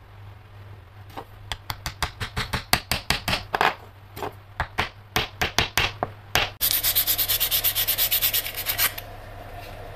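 A run of short, sharp strokes, about three a second, then hand-sanding of a small wooden chisel handle with sandpaper: fast back-and-forth rasping for about two seconds, stopping abruptly.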